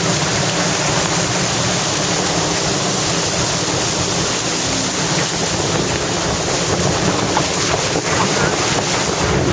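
Steady, loud rush of wind buffeting the microphone together with churning water and spray from a boat's wake, picked up by a camera towed at water level.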